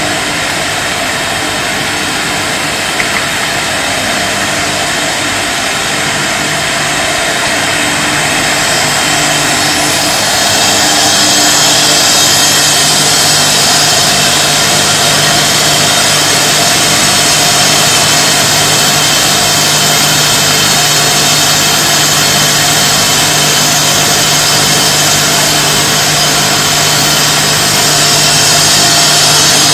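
Jam bottling line machinery running: a steady mechanical din from the chain conveyors and motors, with a low steady hum under a broad hiss. It grows slightly louder about ten seconds in.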